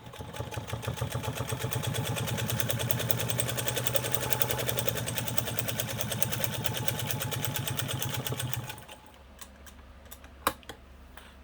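Franklin Rotary 117.123 sewing machine running at speed, its needle stitching through one layer of leather in a fast, even rhythm. It runs smoothly, sewing the leather "just like butter", for about eight and a half seconds, then stops. A single click follows about two seconds later.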